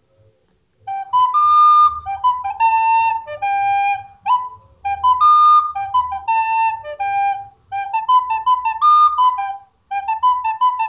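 A flute playing a short melody of a few notes very fast, starting about a second in and repeated in quick phrases with brief breaks between them.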